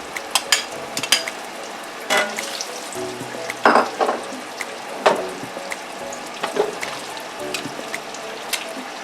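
Zucchini frying in the butter left over from cooking chicken, a steady sizzle with frequent sharp crackles and pops, a few of them louder partway through.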